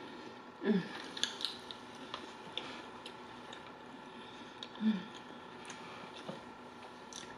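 A person eating a forkful of food: chewing, with scattered wet mouth clicks and smacks. A short hummed sound comes shortly after the start, another about five seconds in, and a light fork click comes near the end.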